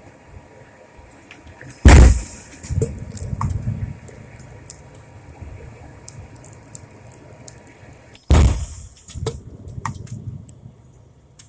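Two loud bangs about six seconds apart, each followed by a few seconds of crackling and rumbling: a burning washing machine packed with spray paint cans and gasoline exploding.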